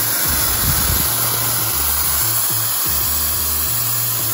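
Background music with a repeating stepping bass line, over a steady hiss.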